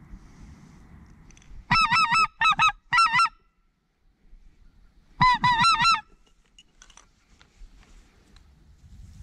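Waterfowl calling: two runs of loud, quick honking notes, the first about two seconds in lasting a second and a half, the second about five seconds in lasting under a second.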